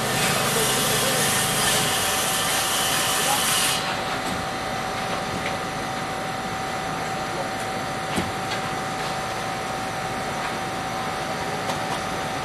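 A harsh scraping, rasping noise for about four seconds that stops abruptly, then a quieter steady background with a few faint knocks.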